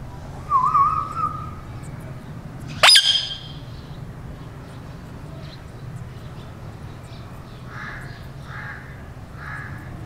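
Indian ringneck parakeets calling: a short warbling call about half a second in, a loud, sharp rising screech about three seconds in, then three soft short calls near the end, over a low steady hum.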